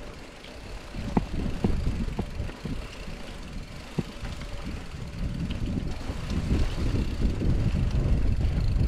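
Mountain bike rolling over a rough dirt trail: low tyre rumble with scattered clicks and rattles, and wind on the microphone, getting louder about halfway through.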